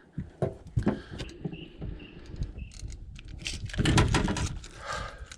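Scattered knocks, clicks and rattles of a freshly landed queenfish and fishing tackle being handled in a small boat, with a heavier thump about four seconds in.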